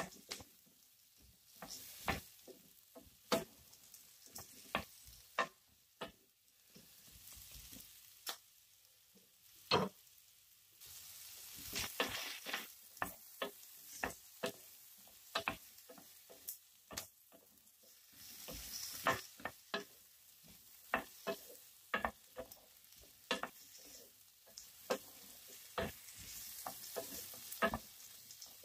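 Wooden spatula stirring sliced carrots, onion and red bell pepper in a black frying pan, knocking against the pan many times at an irregular pace over a light sizzle of the vegetables sautéing.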